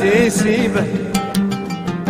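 Oud plucked in a quick melodic run between sung lines of a traditional Yemeni song, with two sharp taps a little past the middle.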